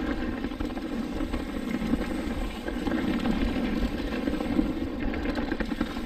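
Mountain bike rolling down a dirt trail: a steady rush of tyre noise over dirt and stones, with wind on the microphone and the bike rattling.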